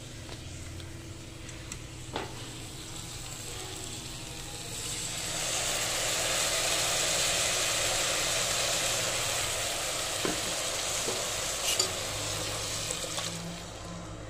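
Masala frying in oil in a steel pot, stirred with a perforated metal ladle that clicks against the pot now and then. About five seconds in, liquid goes into the hot pan and a loud sizzle rises, holds for several seconds, then eases near the end.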